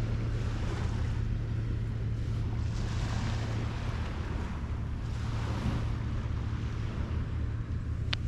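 Waves washing onto a sandy shore, swelling twice, with wind buffeting the microphone and a steady low hum underneath; a single short click near the end.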